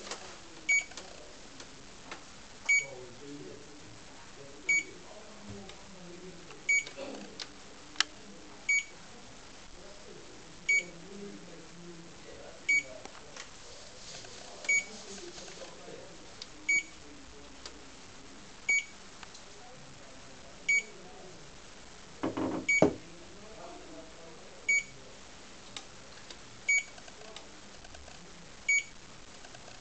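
SmartWitness SVC100GPS dash camera giving a short high beep every two seconds during its firmware update. A brief clatter comes a little past two-thirds of the way through.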